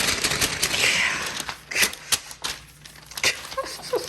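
Crinkling and rustling of packaging being handled, with a few sharp clicks.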